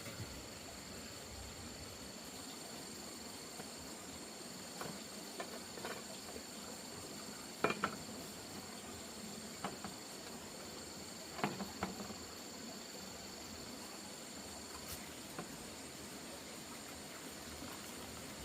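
Insects chirring steadily at a high pitch, with a few light knocks and clatters scattered through, the loudest about eight and eleven and a half seconds in.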